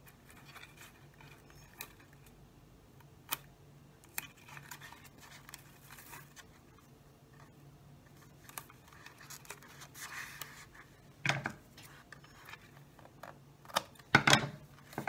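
Decorative sparkly tape being pressed and smoothed onto a clear plastic soda-bottle face shield: light rubbing, rustling and small clicks of the plastic, with a couple of louder knocks in the last few seconds.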